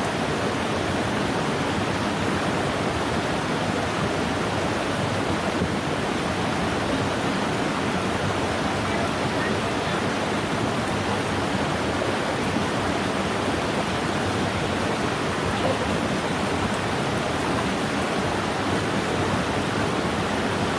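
Mountain stream running high, a steady even rush of water.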